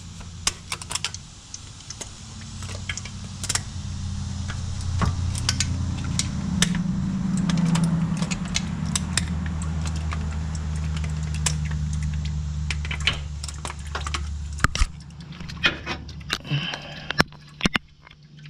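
Sharp metallic clicks and clinks, scattered irregularly, as an oil filter is worked loose by hand under a car. Beneath them a low hum starts about two seconds in, swells in the middle and fades out well before the end.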